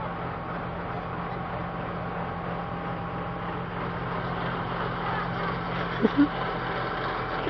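An engine running steadily at a low hum under a constant rushing noise, with two short squeaks about six seconds in.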